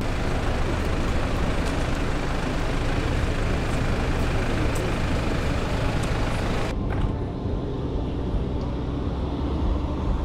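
Street traffic: a steady low rumble of passing vehicles, with a broad hiss that cuts off abruptly about two-thirds of the way through, leaving the rumble.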